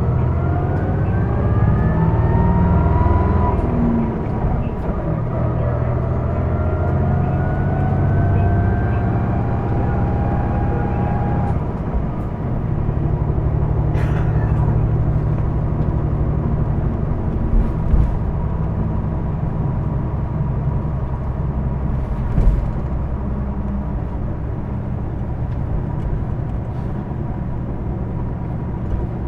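Ride inside a Hino Blue Ribbon II city bus under way, with its diesel engine and drivetrain running. For about the first eleven seconds the bus accelerates with a rising whine, then it runs on steadily, with a few light knocks. This bus is known for an abnormal running noise.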